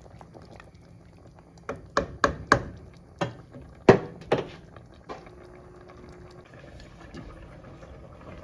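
A pot of chicken in broth simmering, with a quick series of sharp knocks against the cooking pot about two to five seconds in.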